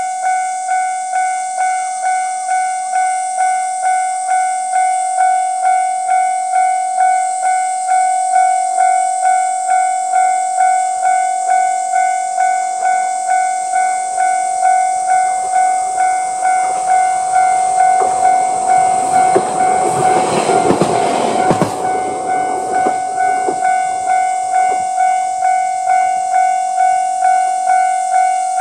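A Japanese level crossing's warning bell dings steadily at about three strikes every two seconds and stops at the very end. About two-thirds of the way through, a single-car YR-880 diesel railcar passes over the crossing, its wheels clacking briefly over the rail joints beneath the bell.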